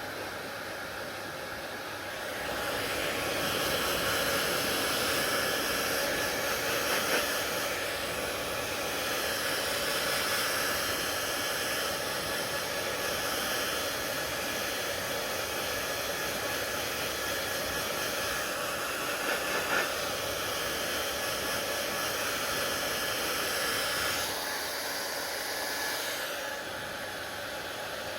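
Hair dryer blowing steadily, a rushing hiss of air and motor; it gets louder a couple of seconds in and falls back in two steps near the end.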